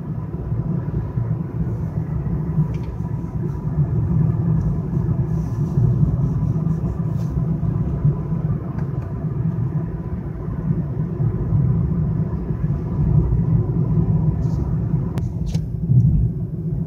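Steady low rumble of a moving car heard from inside the cabin, with road and engine noise. A couple of sharp clicks come near the end.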